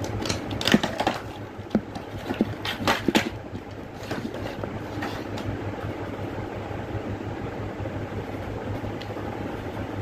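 Handling a wire stripper and its clear plastic blister pack: a run of sharp clicks and crackles in the first three seconds or so, then only a steady low hum underneath.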